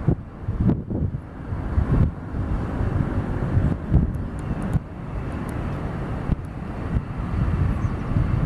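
Jet engines of a Boeing 737-800 airliner running steadily as it taxis toward the runway, with gusty wind buffeting the microphone.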